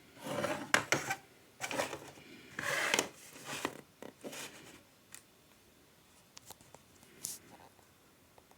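Packaging being handled and opened: a quick run of rubbing and scraping sounds with sharp clicks, thinning out to a few light ticks after about five seconds.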